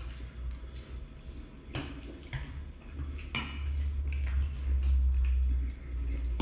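Close-up eating sounds: wet chewing of a forkful of ackee and saltfish with pasta and mushrooms, with a few sharp clicks of a metal fork against the plate and a low rumble underneath.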